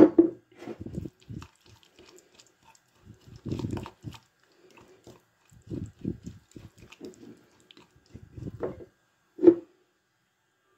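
Wooden spoon stirring and mashing a thick garlic and herb paste with oil in a glass cup, in irregular strokes, with a sharp knock at the very start and another near the end.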